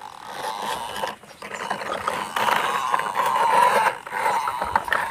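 Plastic toy dump truck pushed by hand over dry, gritty dirt and pebbles, its plastic wheels and axles rattling and scraping continuously, with a short break about a second in.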